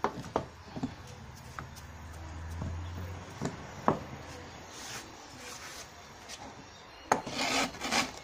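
Things being handled on a wooden workbench: scattered light knocks as a carved branch and wood shavings are moved aside. Near the end comes a sharp knock and about a second of scraping as the sharpening stone and honing guide are lifted. A low hum swells and fades around the middle.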